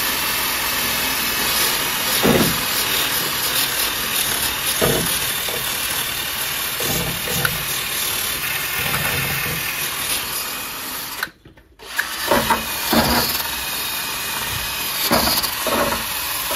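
Cordless Hitachi drill spinning a wire brush against rusty steel on a car's underbody: a steady, scratchy, whirring scrape as the rust is cleaned off around plug-weld holes. It stops for a moment about eleven seconds in, then starts again.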